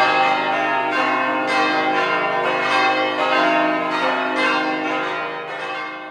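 Church bells ringing: several bells struck one after another, their tones overlapping and ringing on, fading away near the end.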